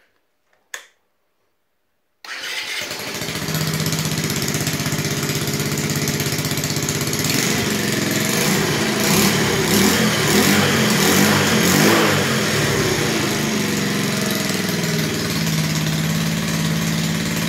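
The freshly rebuilt 50 cc four-stroke single of a Romet ZXT 50 moped comes in about two seconds in and runs at a steady idle. It is revved up for a few seconds in the middle, then settles back to idle. It buzzes from the exhaust port, which is still missing its gasket.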